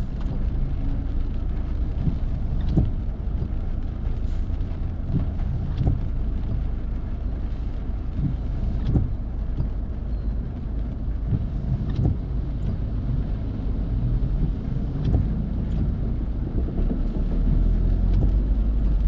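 Road noise inside a moving car on a wet street: a steady low rumble of engine and tyres, with a few light ticks now and then.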